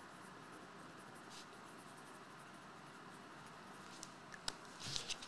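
Faint scratching of a pen writing on a paper sheet, with a couple of light clicks and a short scratchy stroke near the end, over quiet room tone.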